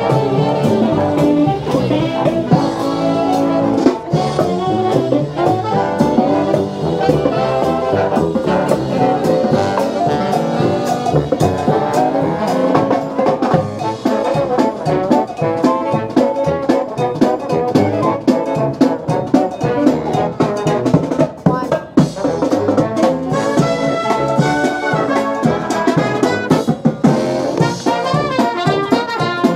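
A marching brass band of sousaphones, trumpets, trombones and saxophones playing a lively tune over a drum beat.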